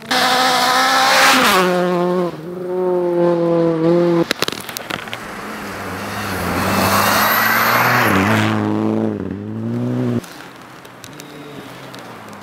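Rally car engine at high revs, stepping down in pitch at gear changes as the car passes, with a loud rush of tyre and snow noise in the middle. The sound drops away sharply about ten seconds in.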